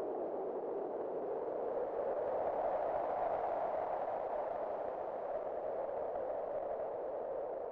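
Wind blowing in a steady, hollow-toned rush that swells and rises slightly in pitch about three seconds in, then eases off.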